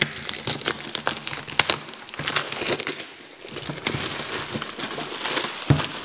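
Clear plastic wrapping crinkling and tearing as it is pulled off a plastic toy case by hand, in dense crackles, with a single thump near the end.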